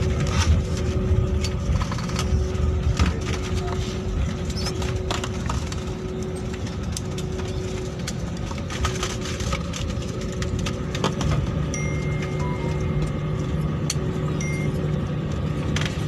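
Inside the cabin of an Airbus A320-family airliner rolling on the ground after landing: a steady low rumble of the engines and wheels, with rattles and knocks of cabin fittings, louder at first and easing after a few seconds. A faint steady high whine joins about twelve seconds in.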